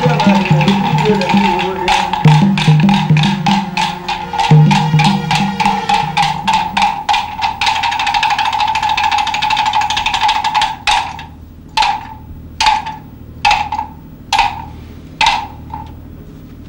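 Percussion-led film score music. Rapid strikes run over a held tone and a low drone, then slow to single strikes about a second apart near the end.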